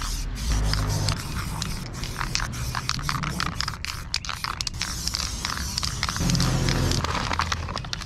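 Aerosol spray paint cans hissing in short bursts, mixed with crackling and rustling of paper being handled.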